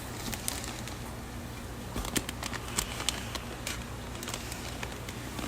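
Steady low electrical hum with a faint hiss, and scattered faint clicks and rustles from handling.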